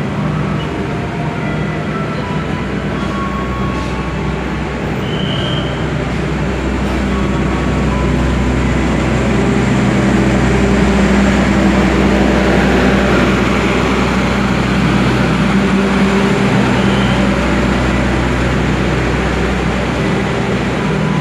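Passenger train coaches rolling slowly past, a steady hum and rumble. It grows louder about ten seconds in as the power car, which carries the train's diesel generator, goes by.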